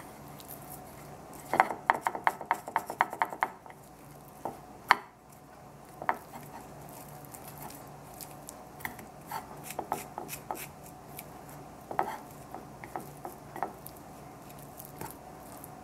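Wooden chopsticks clicking and scraping against a ceramic plate while turning and stacking pieces of seasoned chicken breast: a quick run of about ten clicks a couple of seconds in, a sharper knock near five seconds, then scattered taps.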